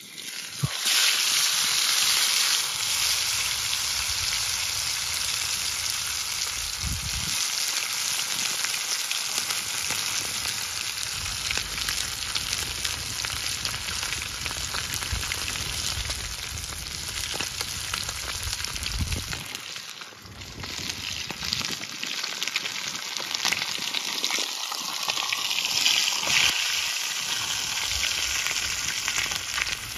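Hot oil in a frying pan sizzling hard as a whole fish fries in it. The sizzle starts suddenly about a second in, when the fish is lowered into the oil.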